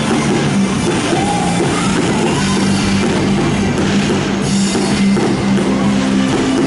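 Loud amplified music with singing, held bass notes changing under a full band mix.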